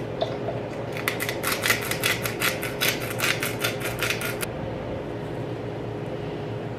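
A fast, even run of light clicks, about six a second, starting about a second in and stopping after about three and a half seconds, over a steady hum.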